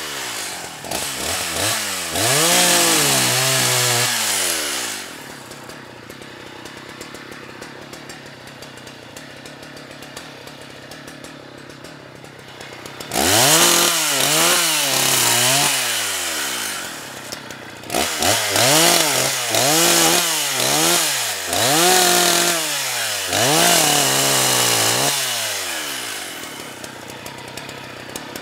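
Husqvarna 181 two-stroke chainsaw revving in repeated rising-and-falling surges, each about a second long, then dropping to a steady idle for several seconds in the middle before revving again in a run of surges and settling back to idle near the end.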